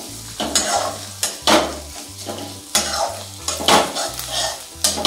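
Steel spatula scraping and stirring curry leaves, chillies and ground spices around a metal kadai, a scrape every half second or so, over the sizzle of the spices roasting in hot oil.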